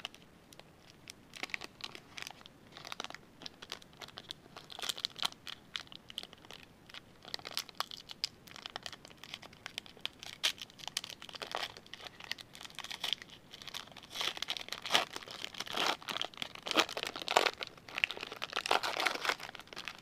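Foil trading-card pack crinkling and tearing as it is worked open by hand: irregular crackles that grow busier and louder over the last several seconds.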